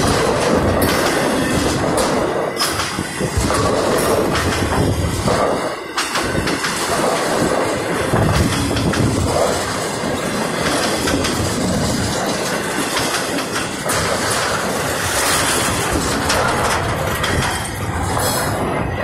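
CSX intermodal freight train passing close by, its cars of trailers and double-stack containers rolling over the rails with a continuous rumble and scattered sharp clicks from the wheels.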